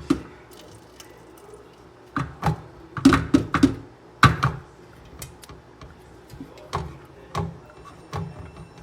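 A series of knocks and clunks from hard objects being handled, with a quick cluster of several about three seconds in and single knocks scattered after.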